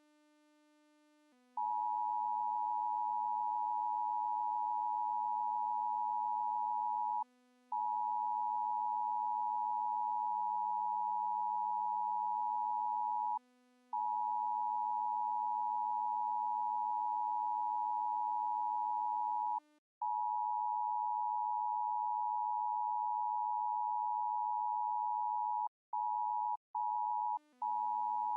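A loud, steady, high electronic sine tone of the kind used as an emergency alert tone, cut by brief gaps several times. Under it, slow synthesizer music of low held notes changes pitch every few seconds, drops out about two-thirds of the way through and comes back near the end.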